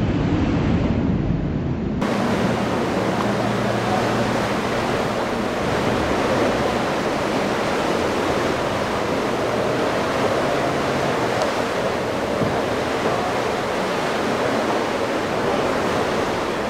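Rough inlet water rushing and breaking, a steady wash of surf with wind on the microphone. For about the first two seconds a boat's twin outboard engines run under the water noise.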